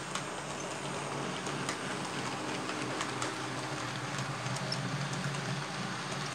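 Model railway train of freight wagons rolling along the track: a steady low hum with scattered light clicks of the wheels over the rail joints.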